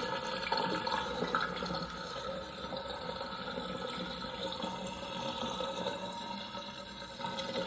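Water running and splashing steadily as a container is emptied out.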